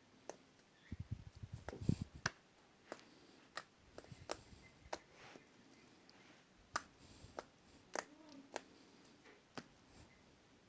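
Slime being squeezed and poked by hand, giving irregular sharp clicking pops, with a few dull low thumps about a second or two in.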